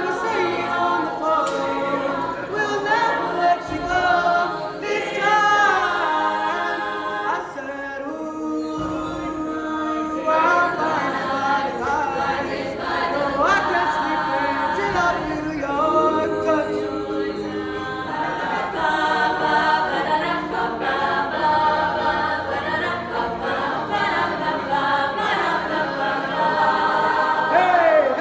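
A group of voices singing a cappella, several voices sounding together.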